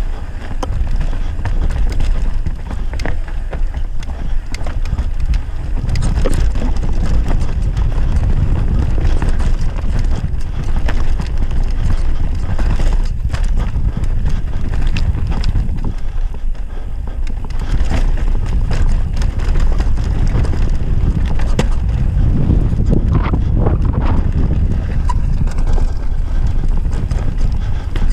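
Mountain bike ridden along a dirt singletrack: a loud rumble of wind on the bike-mounted camera's microphone and of tyres on dirt, with frequent rattles and knocks from the bike as it goes over bumps.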